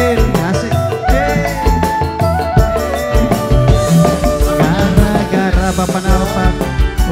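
Live tarling band music: a steady drum beat under a bending, gliding melodic lead line.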